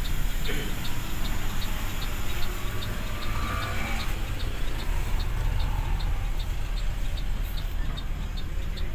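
Mercedes-Benz OH 1526 bus's diesel engine running at low speed, heard from inside the cabin with steady rain and road noise. A regular light ticking, about two and a half a second, runs through it.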